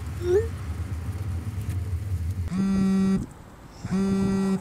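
A short rising text-message chirp, then a mobile phone buzzing with an incoming call: two steady buzzes of under a second each, about a second and a half apart.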